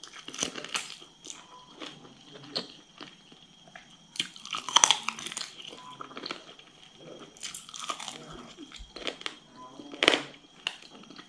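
Close-up chewing, biting and mouth smacking as chicken is eaten off the bone by hand, with wet clicks and crunches. The loudest bites come about five seconds in and again near the end.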